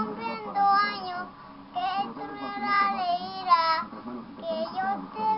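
A young boy singing in a high voice, in short phrases with held notes that slide up and down, broken by brief pauses.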